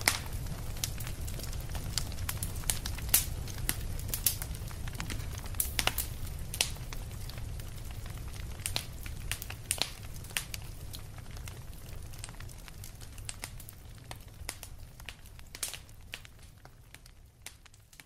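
Wood fire crackling in a fireplace: sharp, irregular pops and snaps over a steady low rumble, slowly fading out toward the end.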